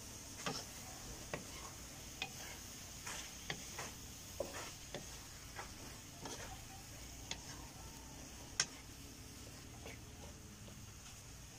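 Wooden spatula stirring chopped sponge gourd and scrambled egg in a pan: irregular scrapes and knocks of the spatula against the pan, over a steady low hiss.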